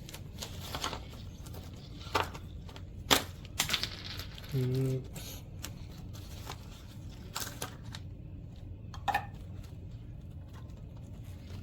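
Ice cubes dropped into hot brewed coffee in a glass carafe: a scatter of separate clinks and knocks, the loudest about three seconds in.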